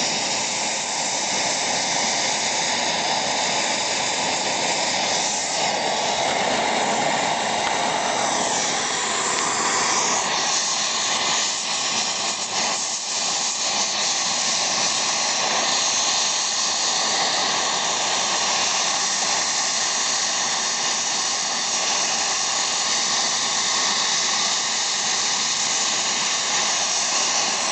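Gas torch burning with a steady hiss as it heats a seized excavator track bushing.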